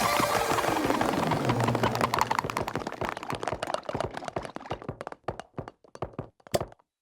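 Cartoon sound effect: a dense clatter of rapid clicks and taps that slows and thins out, fading away as if something is rattling to rest, with a low falling tone in the first couple of seconds.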